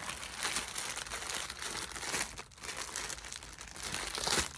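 Plastic packaging crinkling and rustling as clothing is handled and pulled out. The crinkling is continuous, dips briefly past the middle and gets louder just before the end.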